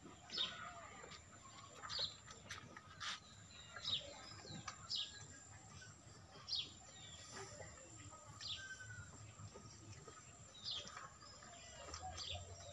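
Birds chirping: short, high chirps that slide down in pitch, coming irregularly about every second or two over a low, steady background, with a few faint clicks.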